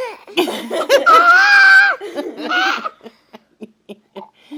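Baby squealing and laughing while being tickled: a long, very high-pitched squeal lasting over a second, a shorter one just after, then a few small faint sounds.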